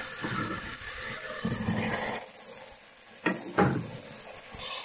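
Ginger-garlic paste frying in hot ghee in an aluminium pot, a steady sizzle as a steel ladle stirs it. After a break, two sharp knocks about a third of a second apart as onions and tomatoes are stirred in.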